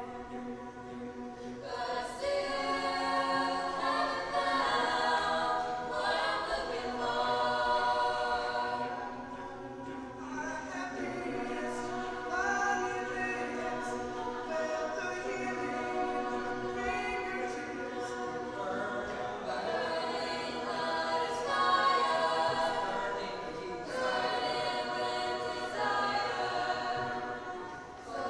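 Mixed-voice chamber choir singing, several sustained vocal parts together; the singing grows louder about two seconds in.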